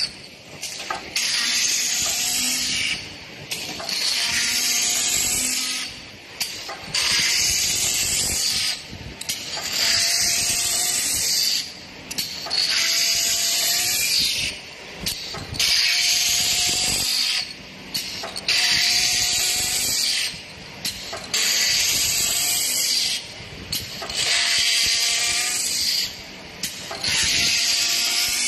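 Wooden paint-brush-handle sanding machine working in a steady cycle: a loud, high-pitched sanding noise of about two seconds, then a short pause, repeating roughly every two and a half seconds.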